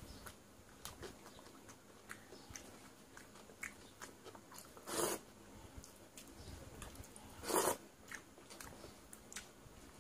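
Close-up eating sounds: chewing and small wet clicks of a hand squeezing and mixing watery fermented rice (panta bhat). Two louder, short wet noises come about five and seven and a half seconds in.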